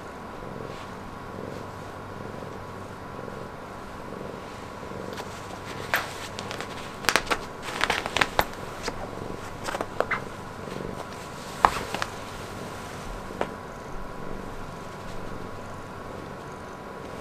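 Domestic cat purring steadily, a soft pulsing rumble. In the middle come a run of sharp crackles and clicks, as the cat's paw works at a quilted nylon jacket.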